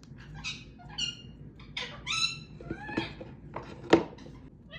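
Pet parrot making a string of short squeaky chirps and calls, some bending in pitch, with a sharp click about three seconds in and a louder one about four seconds in.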